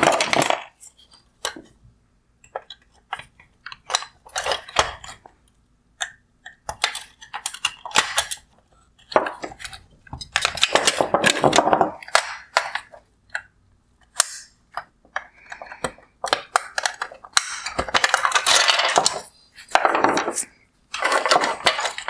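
Plastic covers and clips of a Porsche Cayenne LED headlight assembly being unclipped and handled on a wooden bench: irregular sharp clicks and short bursts of plastic clatter with brief quiet gaps between them.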